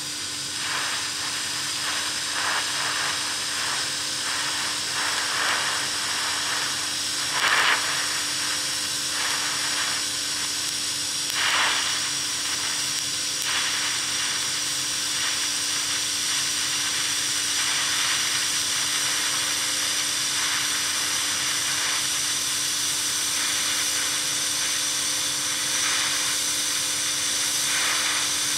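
TIG welding arc from a Vevor 210A TIG welder, hissing steadily over a constant hum, briefly louder twice.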